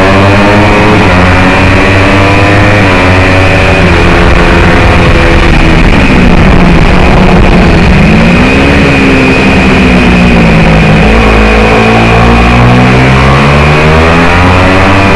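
Single-cylinder race motorcycle engine under hard riding, heard onboard. Its pitch climbs in steps as it shifts up through the gears, drops steeply about halfway through as the bike slows for a corner, then rises again in stepped climbs toward the end, over a steady rushing noise.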